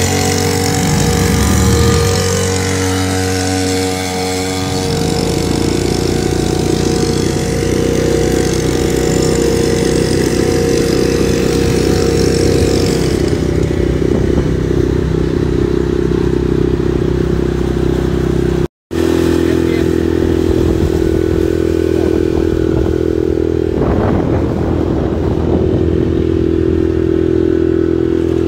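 An engine running steadily, with a slight drop in pitch about 13 seconds in and a brief cut near 19 seconds.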